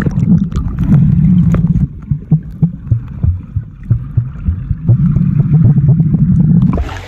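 Muffled underwater sound of a swimming pool heard by a submerged camera microphone: a loud low rumble of churning water, easing off in the middle to scattered bubble pops before building again near the end.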